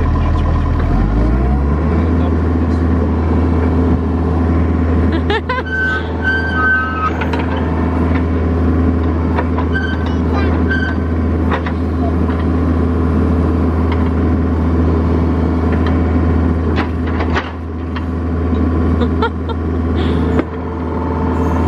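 Mini excavator's diesel engine running steadily, its pitch dipping and rising again in the first couple of seconds as the controls are worked, then holding even.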